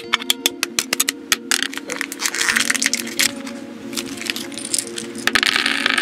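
Background music with a steady low melody, over sharp clicks in the first second and a half and two spells of clattering of small plastic kit parts. The clicks are from hobby nippers snipping the parts off the sprue.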